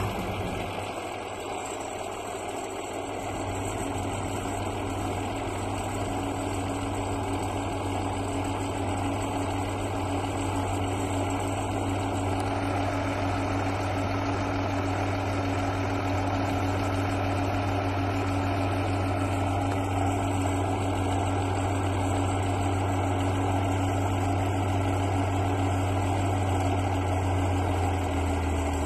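Ursus farm tractor's diesel engine running at a steady speed close by, with a constant low hum.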